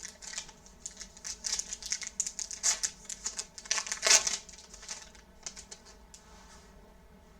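Foil wrapper of a Topps Stadium Club baseball card pack crinkling and tearing open, in a run of rustling bursts that is loudest about four seconds in and dies away near the end.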